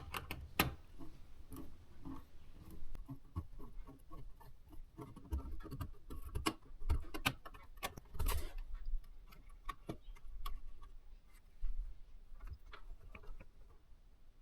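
Irregular light clicks, taps and small knocks of hands working on electrical hardware, with a louder cluster of knocks about eight seconds in.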